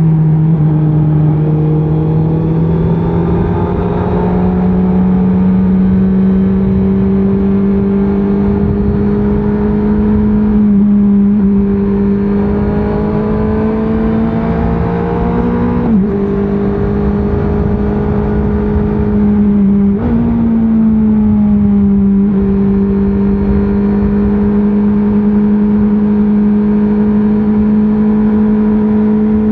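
Honda CBR650R inline-four engine with stock exhaust, running under way on the road. The note falls at first, then holds and climbs slowly, with a few brief dips in pitch.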